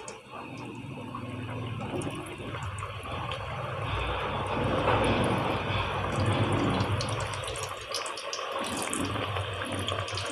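Chicken samosa pinwheels sizzling as they deep-fry in oil on a low flame, a steady hiss that builds over the first few seconds and eases slightly near the end.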